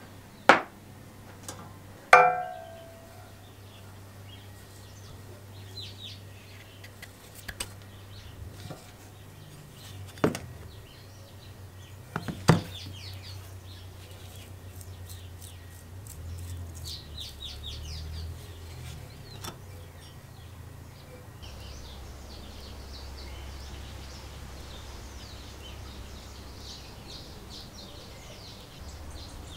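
A few sharp metal clinks and knocks as the lawnmower's ball bearing, shaft and bush are handled on the workbench, one ringing briefly about 2 s in. Birds chirp in the background throughout.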